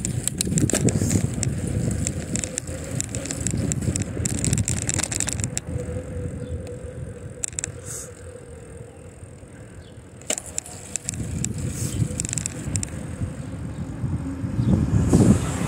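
A bicycle being ridden, with a steady low rumble of wind and road noise on the microphone and scattered ticks and rattles from the bike. It eases off for a few seconds past the middle, then picks up again.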